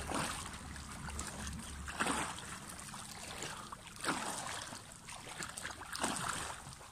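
Pool water swishing and splashing as an arm sweeps through it in a breaststroke arm stroke, four strokes about two seconds apart.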